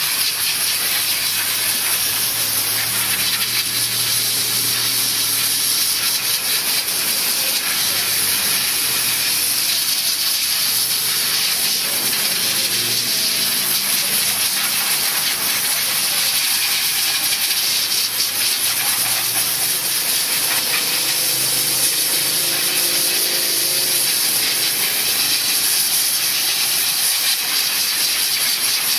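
Commercial steam cleaner's wand jetting steam onto a car engine bay: a steady, loud hiss with no breaks.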